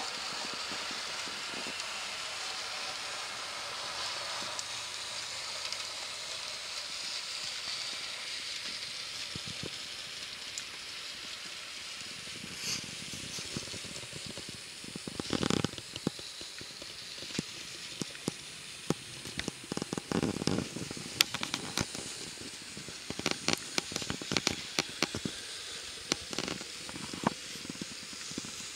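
N-scale model steam locomotive and flatcars running on the layout track: a steady hiss-like running noise, with irregular sharp clicks and ticks and a few louder rattles from about halfway through.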